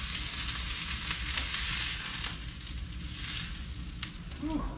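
Hot oil sizzling steadily in a frying pan as a sesame-crusted piece of African pompano sears, the sesame seeds browning; the sizzle swells briefly about three seconds in.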